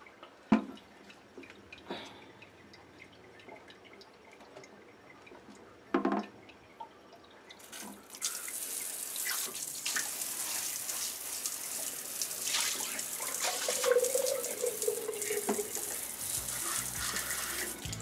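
A few faint clicks, then about eight seconds in a handheld bidet sprayer starts spraying water: a steady hissing spray, the water supply just opened at the T-valve. A brief whining tone sounds in the middle of the spray.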